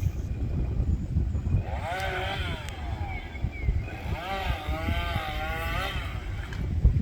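Small two-stroke engine, most likely a chainsaw, revving up and down in two spells as it cuts, with a wavering pitch, over heavy wind rumble on the microphone.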